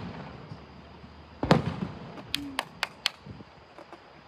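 Aerial fireworks exploding: a deep boom about a second and a half in that rumbles as it fades, then four sharp cracks in quick succession.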